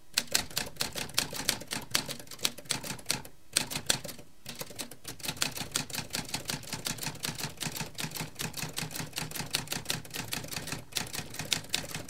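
Typewriter keys clacking in a quick, uneven run of keystrokes, several a second, with brief pauses about three and a half and four seconds in.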